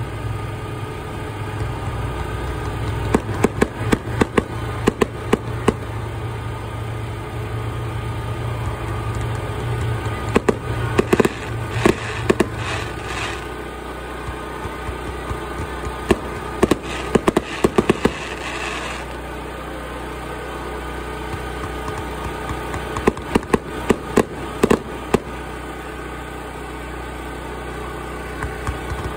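Fireworks crackling: four rapid strings of sharp pops a few seconds apart. A steady low hum runs underneath and drops away about halfway through.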